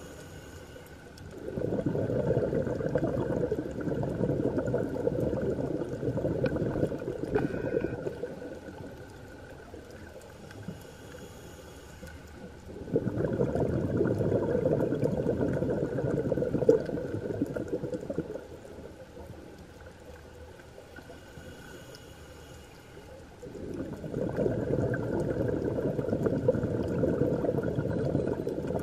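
Scuba regulator breathing, heard underwater: three long bubbling exhalations of about five seconds each, with quieter pauses for inhaling between them.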